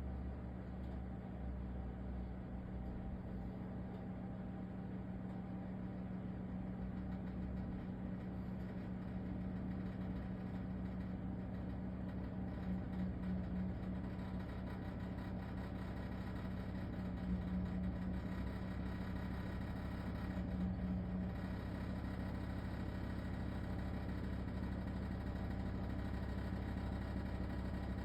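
LG ThinQ WSES4728F wall oven running with a steady hum and a horrible rattling noise, swelling louder a few times, around the middle of the stretch.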